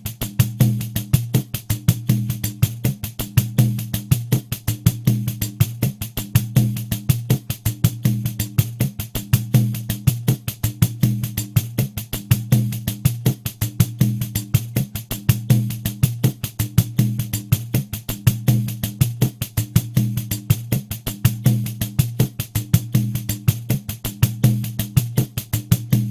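Pandeiro playing a steady repeating rhythm at 80 BPM: a fast, even run of jingle strokes over low deep tones from the drum head, the same pattern looping without a break.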